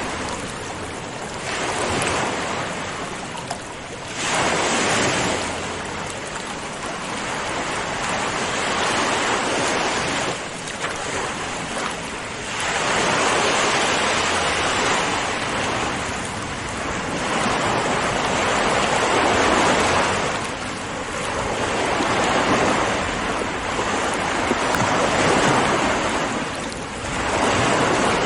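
Ocean waves breaking and washing onto the shore, the surf swelling and falling back every few seconds.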